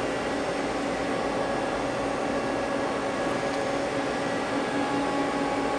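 Steady machine hum with a constant low tone: a Mazak Quick Turn 10N CNC lathe idling after its threading cycle has finished.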